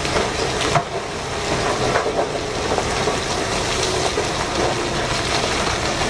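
Load of rock and coal pouring off the raised bed of a giant mining dump truck as it tips, a steady rushing and crackling of tumbling rubble with a few small knocks.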